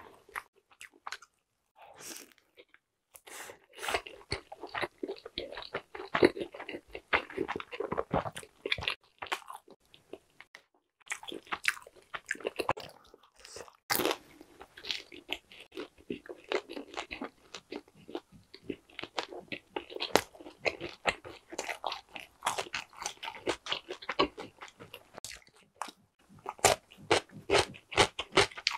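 Chewing a crisp pan-crust pepperoni pizza close to a clip-on mic: runs of crunchy bites and chewing, broken by a couple of short pauses, with one sharp crunch about halfway through.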